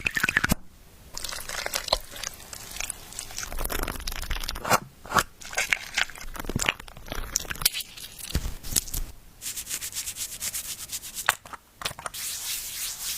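Crisp, irregular crunching and crackling, like ASMR-style eating sounds of something crunchy being bitten and chewed, with a brief pause about two-thirds of the way through.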